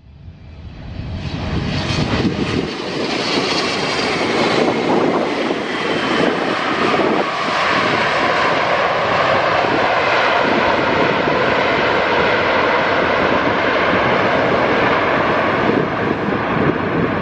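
Boeing 777-300ER's GE90 jet engines running loud through a landing. The sound swells over the first couple of seconds, then holds steady, with a high whine that slowly falls in pitch.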